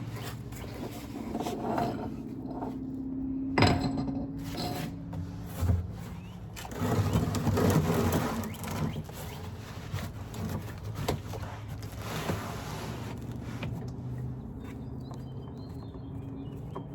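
Hand work on a car during an oil change: scattered knocks and scraping of parts and tools, with a sharp knock about three and a half seconds in and a longer scraping stretch a little past the middle.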